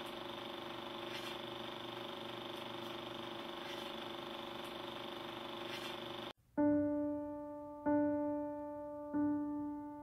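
A steady mechanical whir with faint, regularly spaced ticks, which cuts off sharply about six seconds in. Slow solo piano notes follow, struck one at a time about a second and a half apart, each ringing and fading, and louder than the whir.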